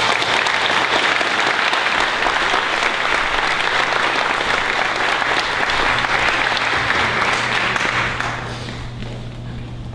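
Audience applauding: dense, even clapping that thins out and dies down about eight and a half seconds in. A steady low hum runs underneath.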